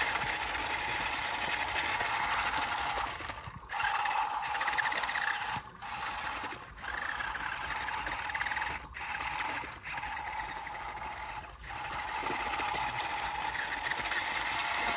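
Hobby-grade RC dump truck running, a steady whir from its electric drive motor and gears, cutting off briefly several times.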